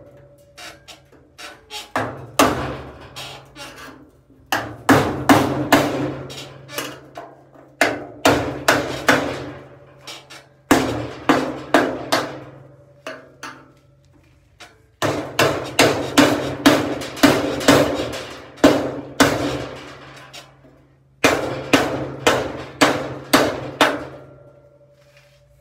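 Hammer striking a screwdriver used as a makeshift chisel, driving it into the sheet-metal seam of a 1952 Chevrolet pickup's cowl panel. The blows come in runs of about three a second with short pauses between runs, and the steel panel rings and hums with each run.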